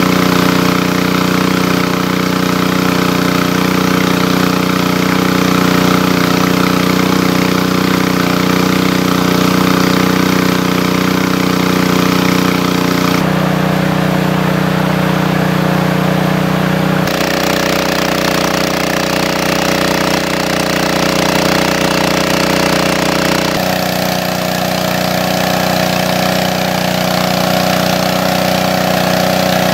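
Small engine-driven water pump running steadily, its outlet hose gushing water. The engine note shifts slightly a few times.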